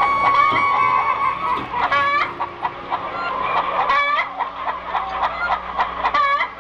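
Chickens clucking: short, bending calls about every two seconds, with a steady high tone under the first part.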